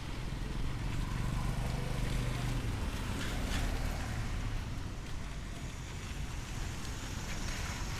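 Outdoor street ambience: a steady low rumble with wind buffeting the microphone, and a low engine hum from a vehicle in the first three seconds or so that then fades.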